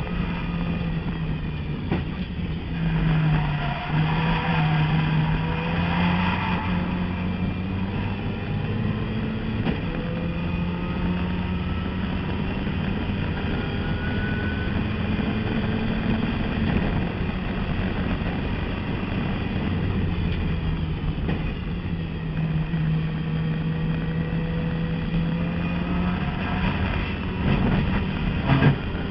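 Turbocharged race car engine heard from inside the cabin, held at high revs in third gear under load through a lap, its note rising and falling a little with the throttle. Near the end the note drops briefly with a sharp spike as the car shifts up to fourth.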